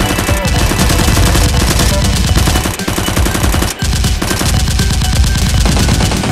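Rapid, continuous automatic gunfire sound effects, many shots a second, with two brief breaks in the firing.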